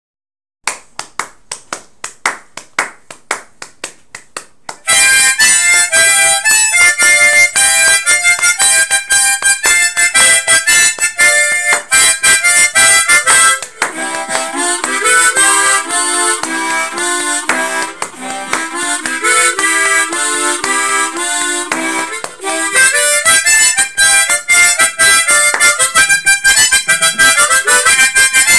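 Tremolo harmonica played solo in octaves: a lively gato tune of quick, rhythmic breathed notes that dips into a lower register midway. It is preceded by a few seconds of light, even taps keeping time.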